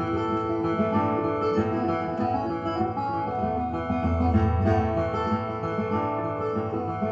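Acoustic guitar playing an instrumental passage of a folk song, with no singing.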